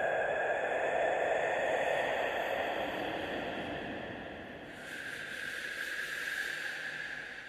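Scary whisper sound effect: a breathy, hissing whisper with faint steady tones beneath, swelling and fading, then turning brighter and hissier about five seconds in.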